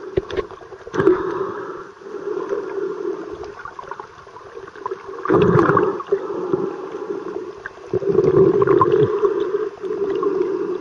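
Muffled water noise picked up by a camera held under the surface while snorkeling, swelling into churning, gurgling surges three times, with scattered small clicks.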